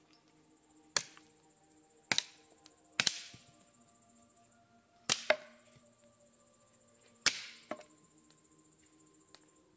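Five sharp chopping knocks, unevenly spaced over about six seconds, each dying away quickly; the fourth is a quick double knock.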